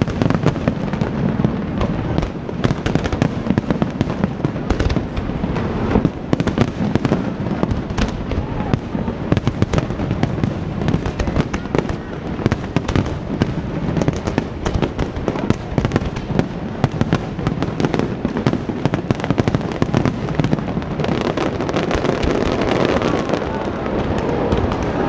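Fireworks going off in a continuous barrage: rapid, overlapping bangs and crackling with hardly a gap, a little denser near the end.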